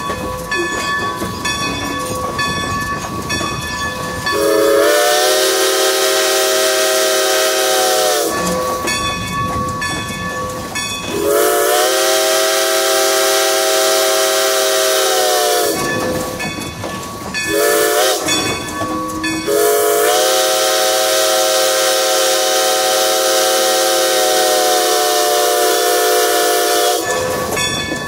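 Steam locomotive's chime whistle blowing long, long, short, long, the standard signal for a road grade crossing. Each blast slides up into a chord of several notes with a hiss of steam, and the last long blast is the longest. Between blasts the passenger train can be heard rolling on the rails.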